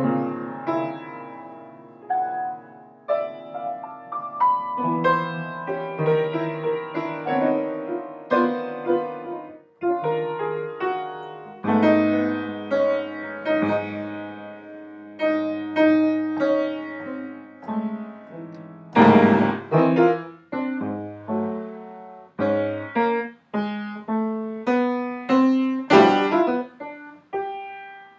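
Piano music: single notes and chords struck one after another in a loose, uneven rhythm, each note fading after it is struck, with a couple of loud, hard-hit chords in the second half.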